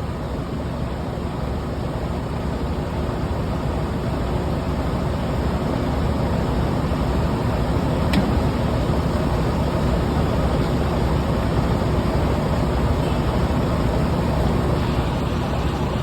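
Steady low rumble of motor vehicles and machinery with a hiss over it, growing slightly louder, and one sharp click about eight seconds in.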